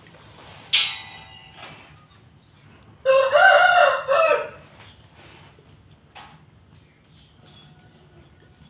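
A rooster crows once, about three seconds in, the call lasting just over a second. A single sharp clink comes shortly before it, near the start.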